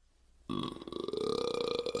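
A person burping: one long, rattling belch starting about half a second in, its pitch rising slightly as it goes.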